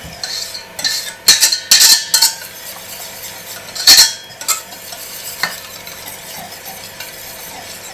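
Hand whisk stirring thick cream cheese and egg yolk batter in a stainless steel bowl, its wires scraping and clinking against the metal. The loudest clinks come in a cluster a little over a second in and again about four seconds in.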